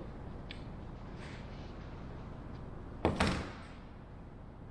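A hand staple gun giving a sharp double clack against the wooden elevator frame and plywood table about three seconds in, over a steady low shop hum, with a couple of faint ticks before it.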